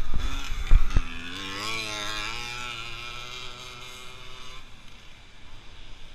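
Engine of a racing vehicle on a dirt cross track, its pitch wavering up and down for a few seconds, then fading out about four and a half seconds in. A few knocks from the camera being handled come in the first second.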